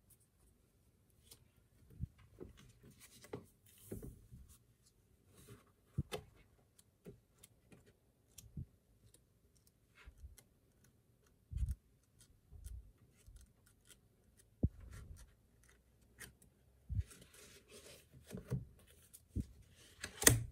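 Paper handling: photocards and pages of a glossy photobook rustling, sliding and tapping, with scattered soft knocks against a wooden tabletop. The loudest knock comes near the end as the book is laid flat.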